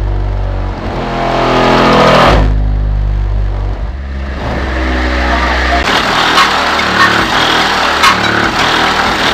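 Bass-heavy music played through an Alphard Machete MS-15D4 15-inch dual-voice-coil subwoofer in a 70-litre sealed box. It is wired to 2 ohms and driven by a Calcell monoblock amplifier. Long, deep bass notes fill the first six seconds, then the bass thins and sharp, regular beats take over.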